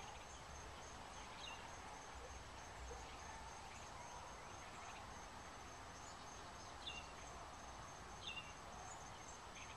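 Faint outdoor ambience: a steady high-pitched insect trill, with a few short bird chirps about a second and a half in and twice near the end.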